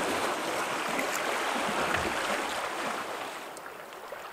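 Water rushing along the hull of a canoe moving across the lake, a steady hiss that falls away about three seconds in to softer water sounds with a few small ticks.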